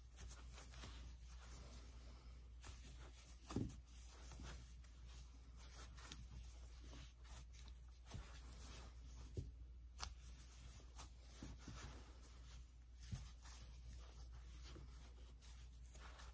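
Faint rustling of chunky ribbon yarn drawn over a metal crochet hook while double crochet stitches are worked, with a few soft ticks from the hook, the loudest about three and a half seconds in. A low steady hum lies under it.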